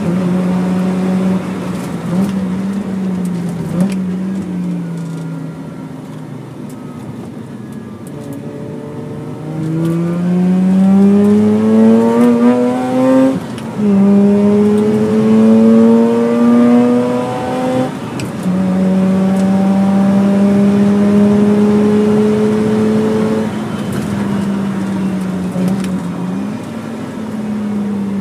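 Mazda RX-8's twin-rotor Renesis rotary engine at full track pace, heard from inside the cabin. High revs ease off into a quieter off-throttle stretch for a few seconds, then the engine climbs steeply again through the gears with brief breaks at the shifts, holds steady around 7,000 rpm and eases off near the end.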